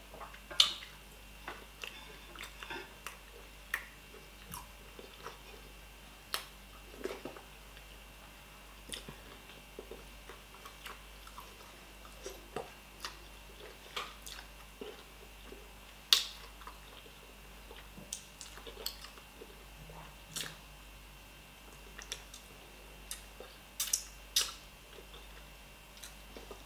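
A person chewing pieces of stockfish head and tilapia fish eaten by hand from soup, with scattered mouth clicks. A few of the clicks are much louder: one about half a second in, one near the middle and a cluster near the end.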